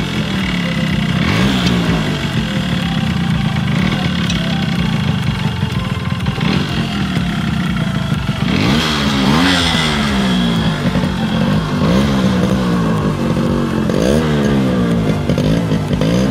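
Yamaha RX100's single-cylinder two-stroke engine running, with the throttle blipped several times so the pitch rises and falls again. The blips come about a second and a half in, around eight to ten seconds in, and again near the end.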